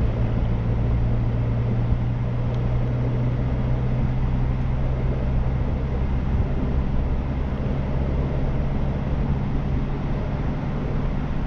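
A car driving along at a steady speed, heard from inside the cabin: a steady low drone of engine and road noise.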